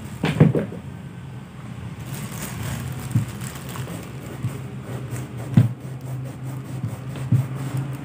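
Cloth rubbing over a sneaker's rubber sole, with a few short knocks as the shoe is handled on the mat, the loudest about half a second in. A steady low hum runs underneath.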